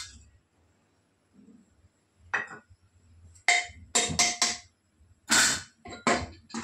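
Metal ladle clanking and scraping against the inside of a metal pressure cooker while cooked goat head meat is scooped out, a run of sharp knocks with a slight ring starting about two seconds in and coming thick and loud in the second half.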